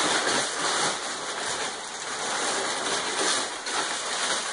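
Crumpled brown kraft packing paper rustling and crinkling as it is pulled out of a long cardboard shipping box.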